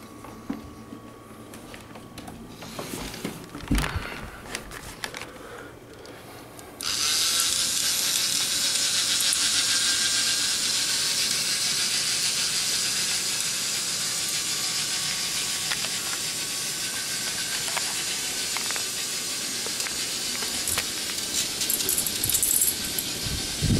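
A few clicks and knocks, then about seven seconds in a K'nex motor switches on and runs steadily with a high, hissy whirr, driving the plastic chain lift of a K'nex ball machine.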